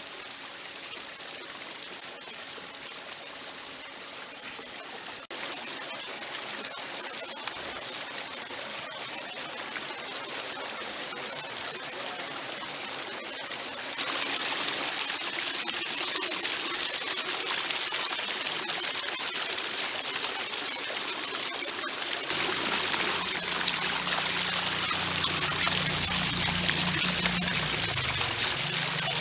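Running water, a steady rush that steps louder about 5, 14 and 22 seconds in, with a low rumble joining it in the last part.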